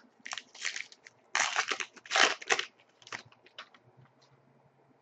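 A hockey card pack's wrapper being torn open and crinkled by hand: a run of crinkling rustles, loudest in the middle, dying away after about three seconds.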